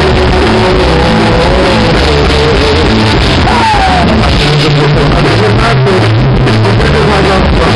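A live band playing rock music, loud throughout, with a lead melody line that wavers and bends in pitch over a steady bass; the lead slides down once about halfway through.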